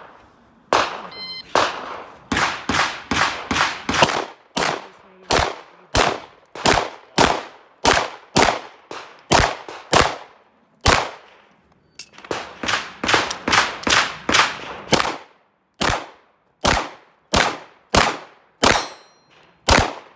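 Semi-automatic pistol shots in rapid strings, about thirty in all, with a short pause about halfway and more evenly spaced shots near the end.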